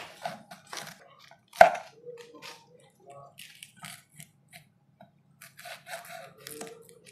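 Kitchen knife slicing fresh green chillies on a wooden chopping board: an irregular run of crisp cuts and taps, the loudest about a second and a half in.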